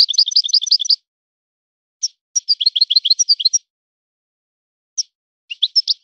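Goldfinch singing in rapid, high twittering phrases of about a second each, with short pauses and a single note between them; one phrase ends about a second in, another runs from roughly two to three and a half seconds, and a third starts near the end.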